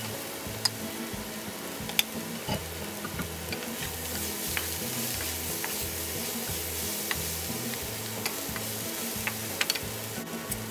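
Fish cake strips and sliced peppers sizzling in a nonstick frying pan while being tossed with two wooden spatulas, the wood ticking and scraping against the pan every so often.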